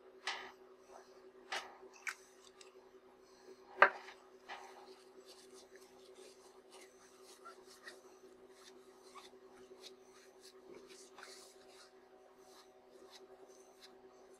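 Cleaning tissue and a swab stick rubbing and scratching on a lens element in its ring, making many faint scratchy ticks. A few sharper clicks of handling come in the first four seconds, the loudest about four seconds in, over a steady low hum.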